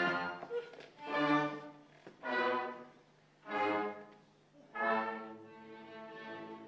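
Orchestra with strings playing four separate chords, each swelling and dying away, with short quiet gaps between them. A softer held chord follows near the end.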